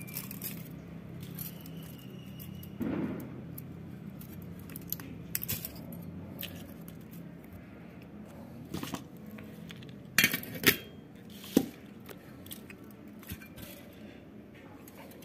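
Light metallic clinks and clicks as the steel housing and stator of a 1/2 hp WEG pump motor is handled and turned, with a few sharper clinks about ten seconds in, over a low steady hum.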